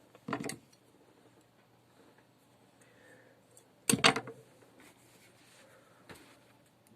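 Clicks and clatter of small electric-drill parts, the carbon brush and its holder, being handled and fitted by hand: a short burst of clicks near the start, a louder rattle about four seconds in, and one faint click a couple of seconds later.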